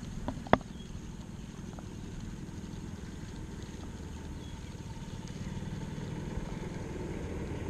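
A golf cart drives closer, a steady low motor rumble that slowly grows louder. A single sharp click sounds about half a second in.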